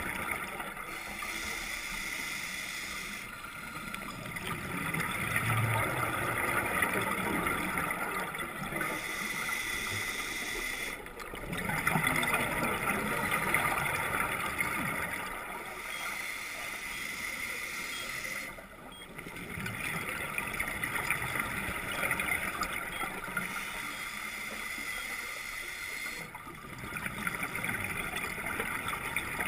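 Scuba diver's regulator breathing underwater: exhaled bubbles gurgling in repeated swells, each breath followed by a short lull about every seven or eight seconds.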